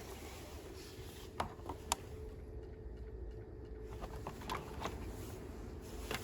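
A few short, faint clicks and taps, two sharper ones about a second and a half and two seconds in, over a low steady hum.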